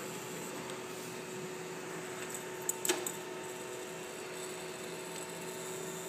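Steady hum of a switched-on 3D printer with its fans running. About three seconds in come a few small clicks and knocks as hands handle the extruder carriage.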